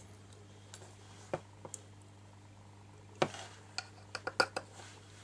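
Light, scattered clicks and ticks of metal tweezers and fingers handling a tiny plastic N-gauge bogie and its gears, with a sharper click a little past three seconds and a quick run of clicks about four seconds in, over a faint low steady hum.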